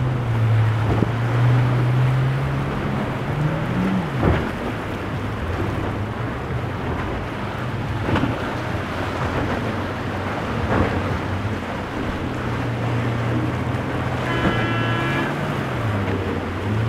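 VanDutch motor yacht's engines running at speed, a steady low drone under the rush of spray and wind on the microphone, with the hull slapping through waves a few times. The engine pitch rises briefly about four seconds in and again near the end, and a short higher tone sounds near the end.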